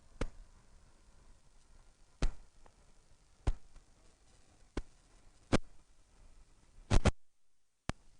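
Sharp clicks and knocks, about six at uneven spacing, picked up by a clip-on wireless lavalier microphone over a low hiss. Near the end the audio drops out to dead silence for under a second, then a single click returns.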